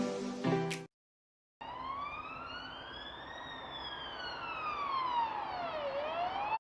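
Emergency-vehicle siren wailing, starting about a second and a half in: one slow rise in pitch, a long slide down, then the start of another rise near the end. Before it, the last notes of soft music end about a second in.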